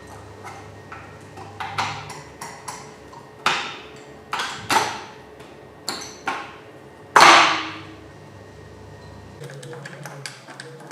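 Irregular sharp metallic clinks and knocks, about a dozen, with the loudest and longest-ringing one about seven seconds in: metal engine parts being handled and tapped during a rebuild.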